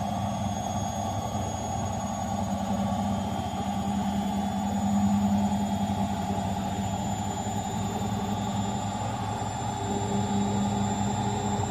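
Bosch washing machine (6 kg load) in its spin cycle: the drum and motor running with a steady hum and rumble, and a thin high whine that slowly rises in pitch as the drum speeds up.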